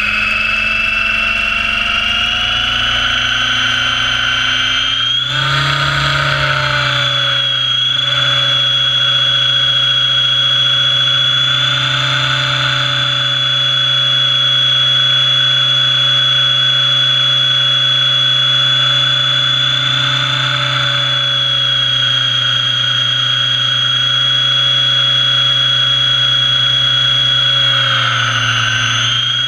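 Radio-controlled model helicopter's motor and rotor running, heard close up from a camera mounted on its body. A high whine rises in pitch over the first few seconds as it spools up, then holds steady, with a brief swell of noise about five seconds in.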